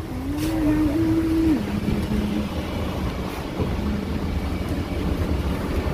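Street traffic: a motor vehicle passes with a steady engine hum that steps down in pitch about one and a half seconds in, over a constant low rumble.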